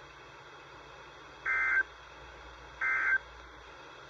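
NOAA Weather Radio end-of-message signal: short bursts of SAME digital data tones, each a brief raspy electronic buzz, sounding twice about a second and a half apart over steady radio hiss, with a third starting at the very end. The bursts mark the end of the severe thunderstorm warning broadcast.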